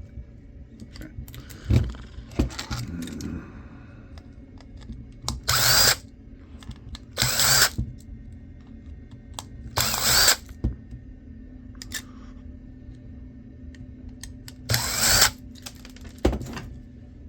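Electric screwdriver with a T6 Torx bit whirring in four short bursts, backing screws out of a laptop hard drive, with small clicks of parts handled between.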